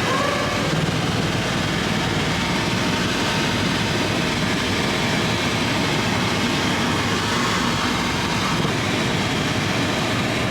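Helicopter in flight, a loud, steady noise of rotor and engine that does not let up.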